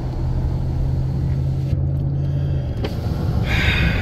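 Pickup truck cruising at highway speed, heard from inside the cab: a steady low rumble of engine and road noise.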